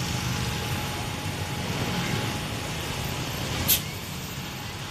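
Bus engines and tyres passing with a steady low rumble. A short sharp hiss cuts in about three and a half seconds in.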